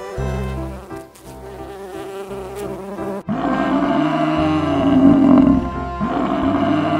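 A bee buzzing over background music; about three seconds in, it gives way to a water buffalo's repeated low grunting calls.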